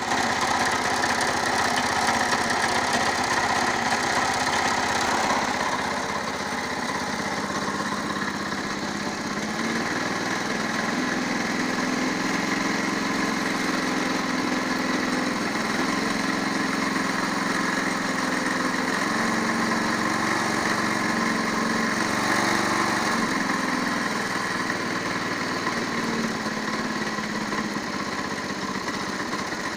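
Walk-behind tractor (motoblock) engine running steadily, a little louder for the first five seconds, with a knock that the owner calls suspicious.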